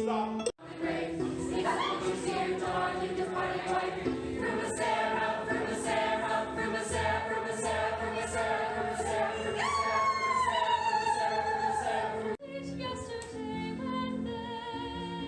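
Music with a choir of voices singing, cut off and restarted suddenly twice: about half a second in and about twelve seconds in.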